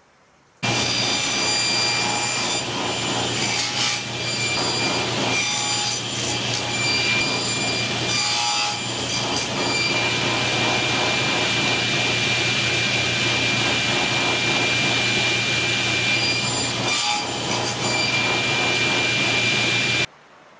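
Homemade table saw running, with a steady hum and a high whine, its blade cutting through small pieces of wood a few times along the way. The sound starts suddenly about half a second in and stops suddenly near the end.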